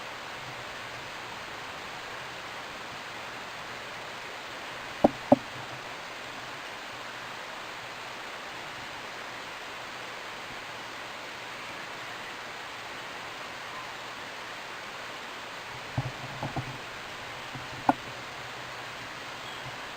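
Steady background hiss, with a pair of sharp knocks about five seconds in and a few more knocks near the end.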